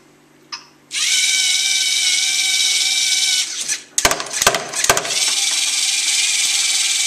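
A LEGO robot's small electric motors whirring as it drives, a steady geared whine. It breaks off after a few seconds for a short run of loud knocks and clatters, then the whirring starts again.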